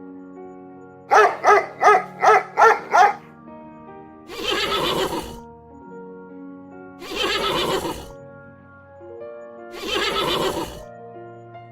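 A dog barks six times in quick succession, then a horse neighs three times, each whinny lasting about a second, over steady background music.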